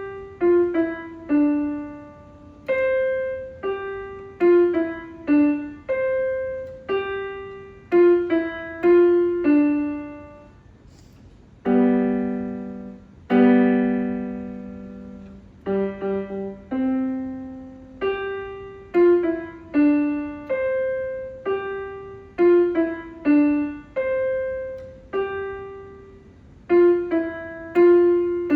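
Solo piano playing a simple melody note by note, with a few fuller held chords in the middle, starting right after a moment of silence.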